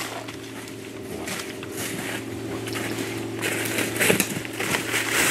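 Dry leaves and crusted snow crunching and rustling as a redbone coonhound tugs at a dead raccoon on the forest floor and a hunter handles it, louder near the end. A low steady hum runs underneath.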